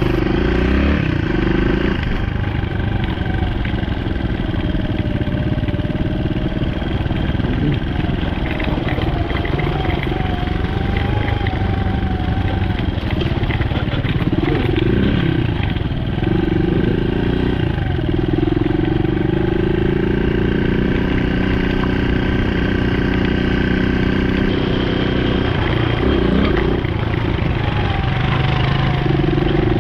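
Single-cylinder dual-sport motorcycle engine running under way on a trail, its pitch rising and falling several times as the throttle opens and closes.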